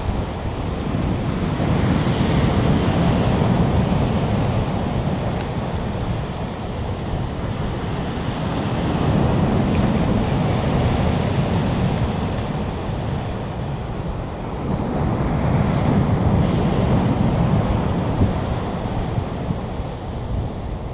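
Wind buffeting the microphone in gusts, swelling about three times, over the faint whine of a taxiing Fokker 70's Rolls-Royce Tay jet engines.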